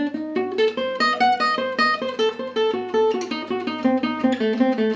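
Gypsy jazz acoustic guitar playing a fast single-note run in E minor, a lick built on a diminished run, picked at about five or six notes a second.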